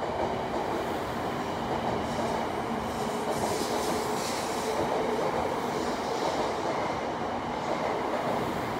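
700 Series Shinkansen pulling out of the station, its cars rolling past close by with a steady rumble of wheels on rail. A hissing rush rises briefly around the middle.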